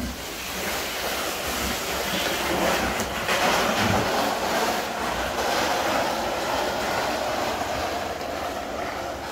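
Large woven polypropylene bulk sack dragged across a concrete path, a steady scraping rustle that is loudest around the middle.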